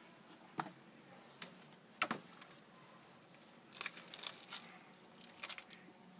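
Cardboard box packaging handled: a few sharp clicks and taps in the first two seconds, then two short spells of crinkly rustling.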